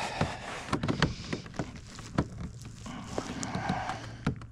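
Irregular light knocks and clatter of a landed bass and fishing gear being handled aboard a kayak.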